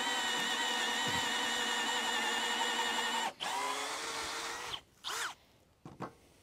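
Bosch GSB 185-LI 18 V cordless drill running steadily with a 14 mm wood bit, boring lengthwise through a board. About three seconds in the motor cuts out and restarts at a lower pitch. Near the end there is a short burst of the motor spinning up and winding down.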